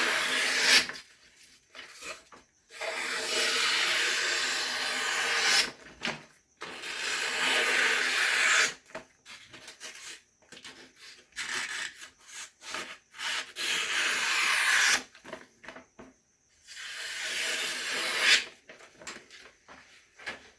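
A freshly sharpened blade being drawn through material in a cutting test: five long rasping strokes of about two to three seconds each, with short quiet gaps between them.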